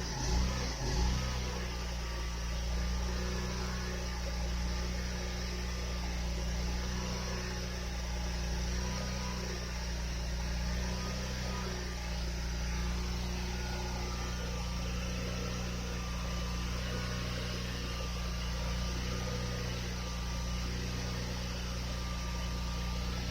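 Steady low hum, with two short thumps in the first second or so.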